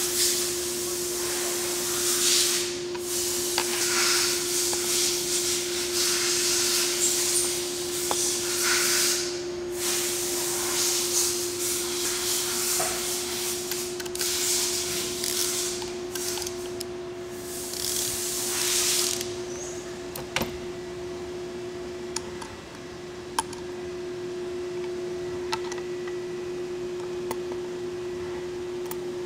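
Steady machine hum under a fluctuating rushing hiss for the first twenty seconds or so, then a quieter stretch with a few sharp clicks as clamp screws on a machining fixture are tightened with hand tools.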